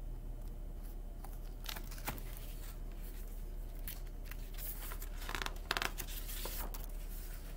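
Pages of a hardcover picture book being handled and turned: a few short papery rustles and swishes over a low steady hum.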